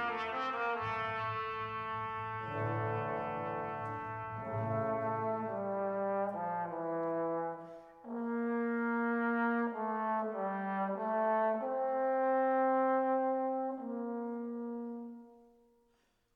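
Background music: slow brass melody in sustained notes, French horn-like, fading out near the end.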